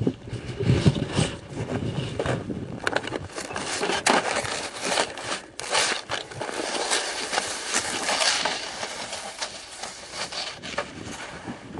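Snow crunching and scraping in an irregular, rasping run as feet and the skis of a homemade ski bike move over packed snow.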